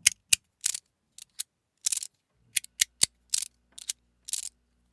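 Fidgetboy Stix fidget slider, with a PLA shell and a stainless steel slide layer, clicking as it is worked back and forth in the hand: about a dozen sharp clicks at irregular spacing.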